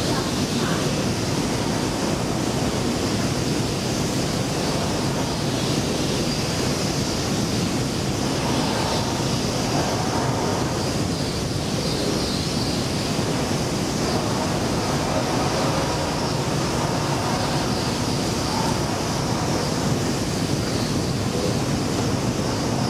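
Escalator running during a long ride down: a steady rumbling hiss with a faint high whine, without let-up.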